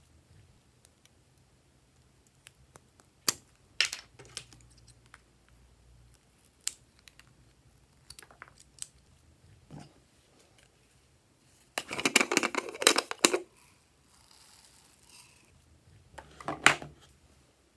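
Small scissors snipping and clicking against plastic lip balm tubes, in scattered sharp clicks. About twelve seconds in comes a dense burst of crackling handling noise lasting over a second, and a shorter one near the end.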